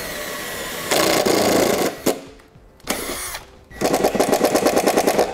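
Cordless impact driver with a quarter-inch nut driver running a number 8 self-tapping screw into sheet metal. A steady whine at first, then bursts of rapid hammering about a second in, near the middle, and longest near the end.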